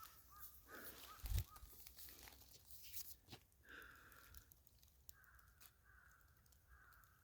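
Faint crow cawing, three harsh calls in the second half, over scattered rustling and clicking from handling. There is one low thump about a second and a half in.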